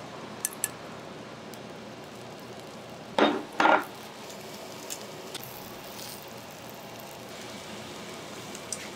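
Dishes and metal utensils clinking over a steady hiss, with a couple of light clicks and two short, louder knocks a little past three seconds in.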